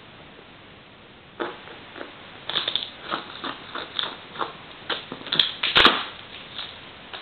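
Tape- and plastic-wrapped cardboard parcel being handled by hand: irregular crinkling and scratching that starts about a second and a half in. The loudest crackle comes shortly before the end.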